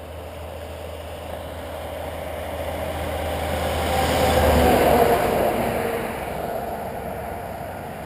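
A car passing on the road, its engine and tyre noise swelling to a peak about five seconds in and then fading away.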